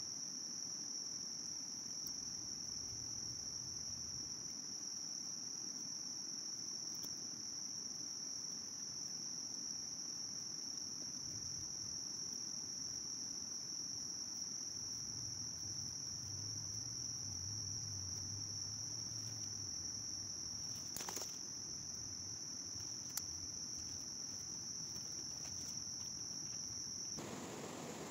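A steady, high-pitched insect chorus that stops abruptly near the end, with a couple of faint clicks partway through.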